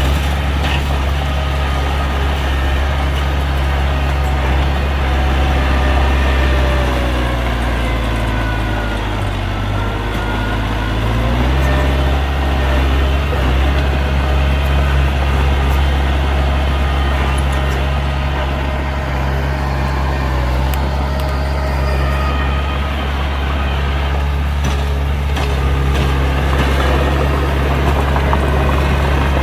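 Heavy diesel engine of earthmoving machinery running steadily and loudly. Its pitch sags for a few seconds about a third of the way in, as if under load, then picks back up.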